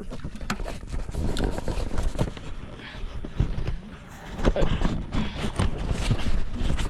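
Close handling noise on the camera's microphone: irregular knocks, taps and rustling over a low rumble.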